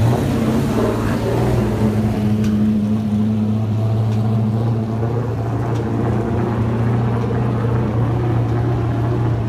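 Stock car engine running at low speed as the car rolls slowly down pit road, a steady low drone that holds one pitch.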